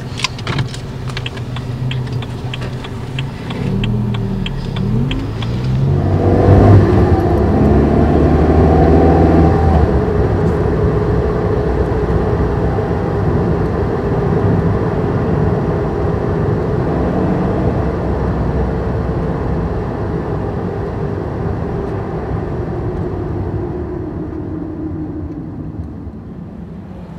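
Car heard from inside the cabin. After a few light clicks the engine revs up with a rising pitch, loudest about six to ten seconds in, then settles into a steady run with road noise and fades out near the end.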